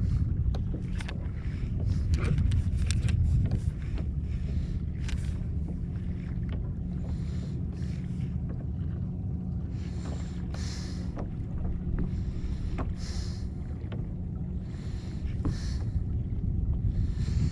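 Wind buffeting the microphone and water moving against a kayak hull, a steady low rumble. Small clicks and knocks come in the first few seconds, and brief splashy hisses come several times in the second half.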